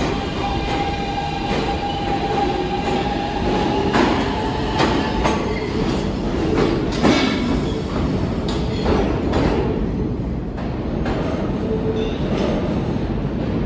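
New York City subway F train running between stations, heard from on board: a steady rumble with a held high-pitched squeal or whine for the first five seconds. Several sharp rail clacks come around the middle.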